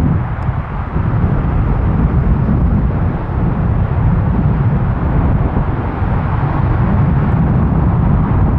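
Rolls-Royce Trent XWB turbofan engines of an Airbus A350-900 at takeoff power: a loud, steady low rumble.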